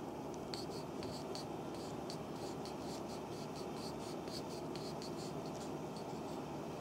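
Wooden reflexology stick worked into an oiled foot sole: a soft rubbing with small, quick clicks of slippery skin, about three a second, over a steady background noise.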